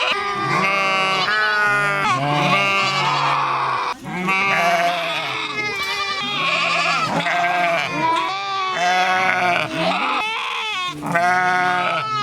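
Several sheep bleating, one call overlapping the next in a continuous chorus of wavering baas.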